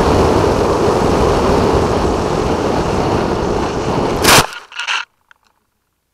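Steady rush of wind across the onboard camera of a Funjet RC plane flying low. About four seconds in the rush cuts off at one loud hit as the plane comes down into long grass, followed by under a second of scraping and rustling as it skids to a stop.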